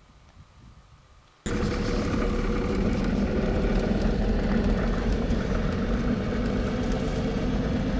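Quiet at first, then cutting in suddenly about a second and a half in: a 60 Series four-wheel drive running steadily down a gravel road, engine hum and tyre noise heard from inside the cabin.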